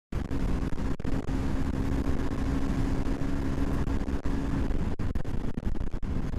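Onboard sound of a motorcycle riding fast on an open road: a steady engine note over a dense low rush of wind and road noise. The sound briefly drops out several times.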